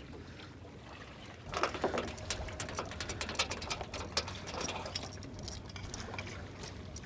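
Metal clinking and rattling as the trailer's safety chain is unhooked from the boat's bow: irregular sharp clicks that start about a second and a half in and go on to the end.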